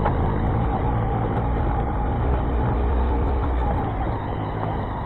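Motorcycle engine running steadily while it is ridden, a continuous low rumble.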